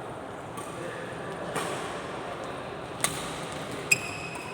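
Two sharp racket hits about a second apart in a doubles rally, near the end; the second is the louder, with a short metallic ping from the strings. Steady background hubbub underneath.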